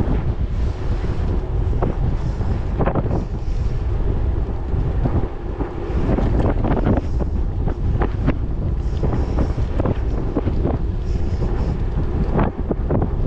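Wind buffeting a handlebar-mounted camera's microphone on a bicycle riding at about 24 km/h: a loud, steady low rumble with irregular gusty surges.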